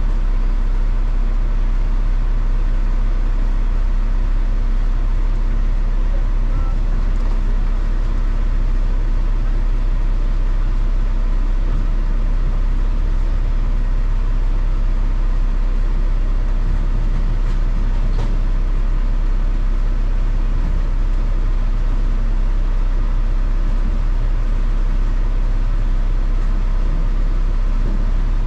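Heavy truck engine running at an even speed, a deep steady drone with no rise or fall in pitch.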